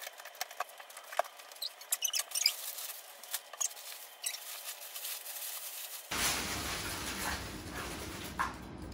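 A box cutter scratching and clicking as it slits the tape on a cardboard box, then paper packing rustling as wrapped items are lifted out, about six seconds in.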